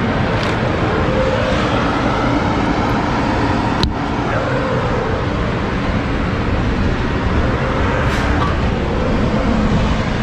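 Motor vehicle driving: steady engine and road noise, with one sharp click about four seconds in.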